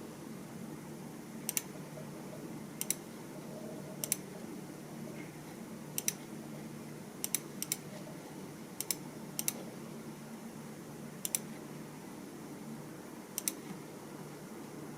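Computer keyboard keys pressed slowly and unevenly, about ten separate keystrokes with pauses between them, several as quick double clicks, over a steady low hum.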